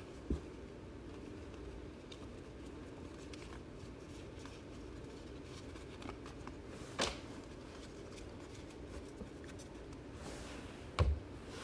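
Faint handling of a stack of baseball trading cards, with soft slides and light ticks as the cards are moved, over a steady low background hum. A sharp tap comes about seven seconds in, and a louder knock with a dull thud near the end.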